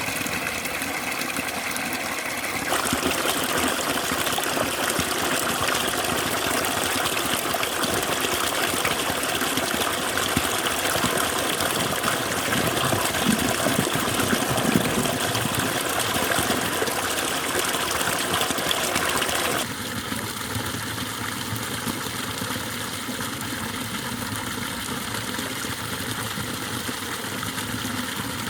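Water pouring from a paddy-field drainage spout and splashing into a pond: a steady rushing splash. It steps louder about three seconds in and drops back to a softer rush about twenty seconds in.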